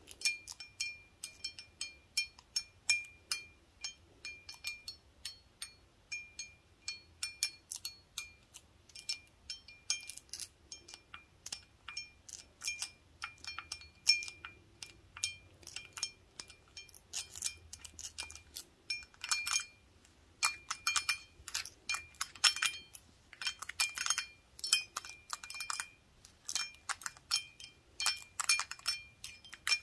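Wooden toothpicks tapping on an empty glass beer stein. Each tap is a light clink with a brief ring at one clear high note, coming in quick irregular flurries that grow denser in the second half.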